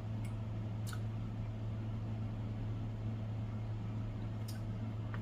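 A steady low hum with faint room hiss, and a few soft, brief clicks of someone chewing food.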